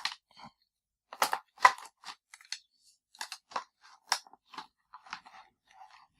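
AA batteries being taken out of a Logitech K400 keyboard's plastic battery compartment: a series of irregular clicks, knocks and rattles.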